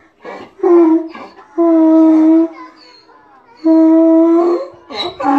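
Donkey braying: three long, steady, loud notes of about a second each, with quieter breaths drawn between them.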